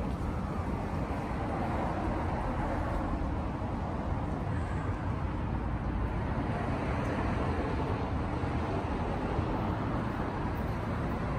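Steady city street ambience: road traffic running continuously, with no single event standing out.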